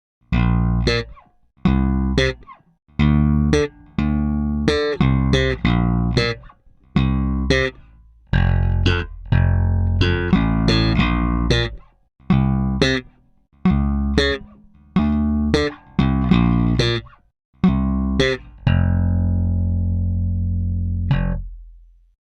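Seed by Sago Tabuchi Mk-II electric bass with a Tabuchi custom pickup, played unaccompanied in short phrases of plucked notes with brief pauses between them. The last note rings out long and fades, with a short high note sounding over it near the end.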